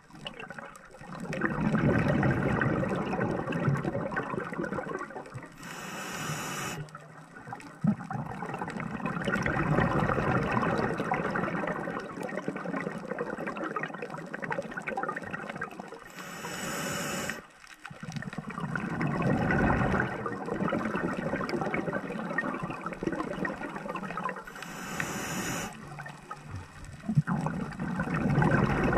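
A scuba diver breathing through a regulator underwater: long gushes of exhaled bubbles, each broken by a short, high hiss of inhalation, three breaths about ten seconds apart.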